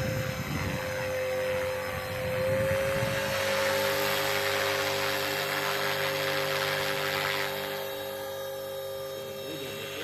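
Radio-controlled Bell 206 JetRanger scale model helicopter in flight: a steady high motor whine with rotor noise. A rushing sound swells from about two seconds in and eases off near the end.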